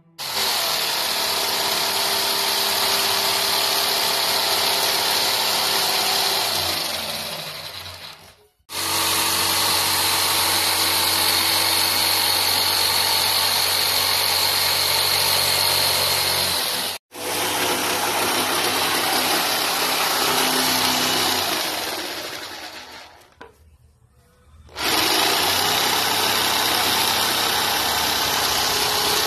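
Black+Decker corded jigsaw sawing through a wooden board, its motor and reciprocating blade running at a steady high speed. It winds down twice, about seven and about twenty-one seconds in, and starts cutting again each time.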